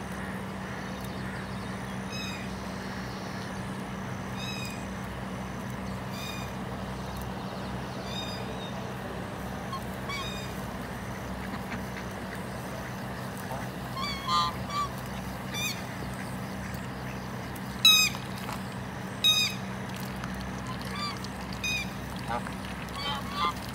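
Domestic white ducks quacking, in short scattered calls that start around the middle; the loudest two come a few seconds after the middle. A steady low hum runs underneath.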